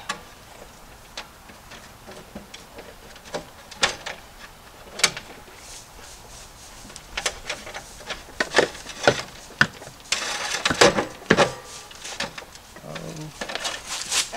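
Scattered clicks, knocks and scrapes of electrical wires and a PVC conduit fitting being worked up through a knockout into an electrical panel, with a longer rustling scrape about ten seconds in.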